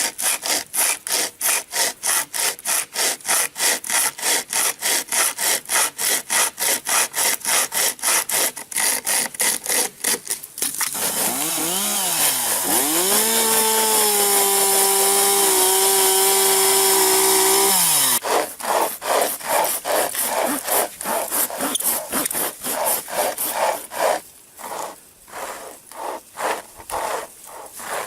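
Hand-pulled pocket chain saw cutting wood in quick back-and-forth strokes, about two and a half a second. For about seven seconds in the middle the strokes give way to a steady whining tone that dips and rises at first, then holds. After that the sawing strokes start again, less regular.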